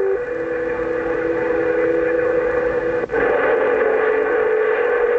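CB radio receiver on the 27 MHz band putting out static hiss with steady whistling tones, which shift to a different pitch about three seconds in.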